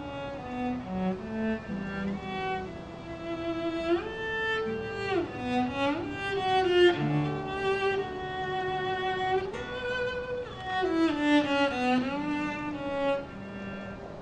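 Cello and classical guitar playing a slow tango duet: the bowed cello carries the melody, sliding between notes in several glissandi, over the guitar's plucked accompaniment.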